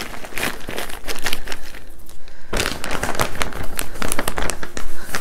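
Plastic bag of potting soil crinkling and rustling as it is handled over a grow sack, in an irregular run of crackles with a brief lull about two seconds in.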